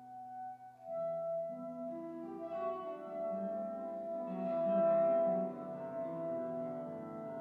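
Soprano saxophone and classical guitar playing a slow tango. After a short break in the first second, the saxophone comes in on a long held note over plucked guitar notes and swells to its loudest about five seconds in.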